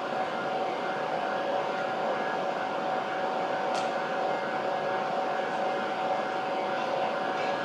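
Steady mechanical hum of a Shinkansen station, an even rush with a few held tones, with no rise or fall in loudness.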